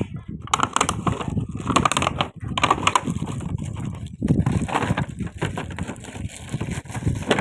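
Packaging being handled and opened: irregular crinkling and rustling with quick crackles.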